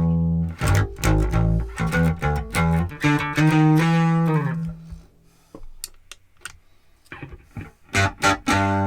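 Electric bass guitar played through a Gallien-Krueger PLEX preamp/EQ pedal: a run of plucked notes with a note sliding down in pitch about three to four seconds in. The playing drops to a few soft clicks for a couple of seconds, then picks up again near the end.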